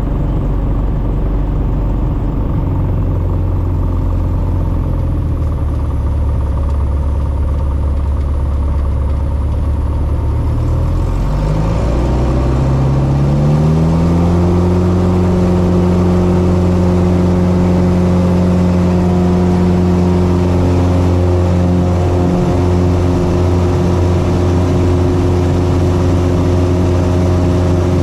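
Carbon Cub FX-3's piston engine and propeller heard from the cockpit, running at low power, then throttled up smoothly about eleven seconds in. From there it holds a steady higher-rpm drone that is a little louder.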